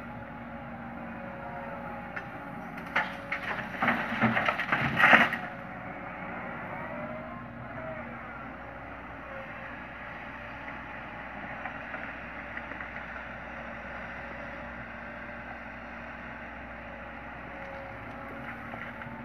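Sumitomo SH130 excavator's diesel engine running steadily under load with hydraulic whine, its bucket crunching and clattering through stony soil for a couple of seconds about three seconds in.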